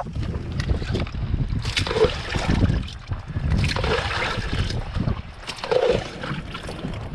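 Wind buffeting the microphone with a steady low rumble, and a splash of water about every two seconds as oars are pulled through choppy water in a small rowboat.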